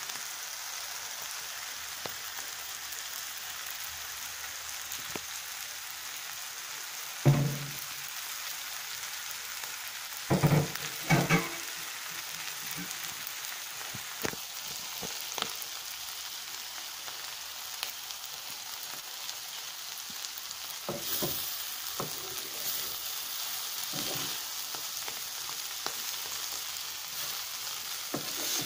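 Bitter melon and potato sizzling in oil in a frying pan, a steady hiss throughout. Three loud short thumps come about seven and eleven seconds in, and a spatula stirring and scraping the pan is heard in the second half.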